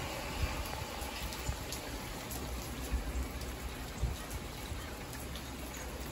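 Rain hitting a car's windshield and roof, heard from inside the cabin: an even hiss with scattered sharp ticks of single drops, over a low rumble.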